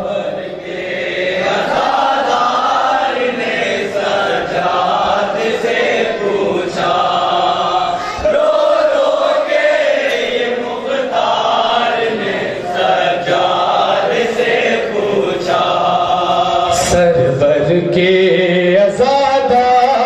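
A group of men chanting a noha, an Urdu mourning lament for Muharram, together in a sung chant.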